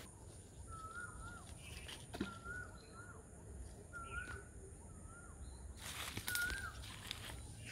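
A bird repeatedly calling a short whistled note that rises slightly and then drops, about once every second and a half. A brief rustle of movement in the undergrowth comes about six seconds in.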